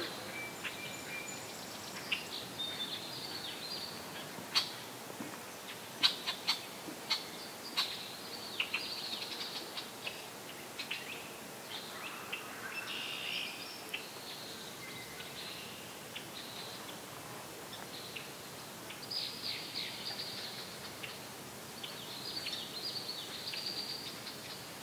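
Several wild birds calling: many short high chirps and trills, with a handful of sharp clicks between about 4 and 8 seconds in, over a faint steady outdoor hiss.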